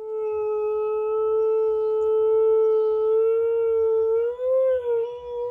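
Husky howling: one long howl held at a steady pitch, rising and wavering about four seconds in.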